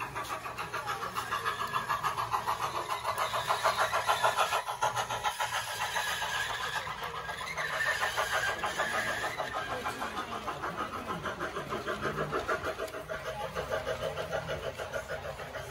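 G-scale model steam train with freight cars and a caboose running past on a curved trestle. It makes a rapid, even rhythmic clatter that swells and eases as the cars go by.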